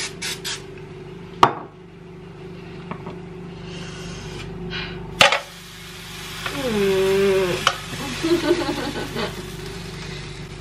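Short hisses of aerosol cooking spray at the start, then sharp knocks and scraping of metal pans and a spatula handled over a glass-top electric stove, with a longer hiss near the middle.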